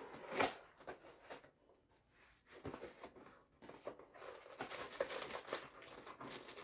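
Cardboard parts box being handled and opened: scattered taps and scrapes of the carton, then steadier rustling from about four and a half seconds in.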